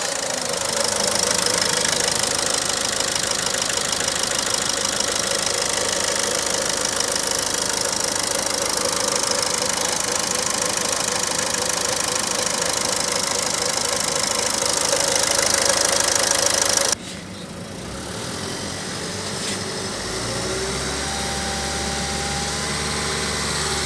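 Ford Figo Aspire engine running steadily. It cuts off abruptly about seventeen seconds in, and a quieter, lower hum follows.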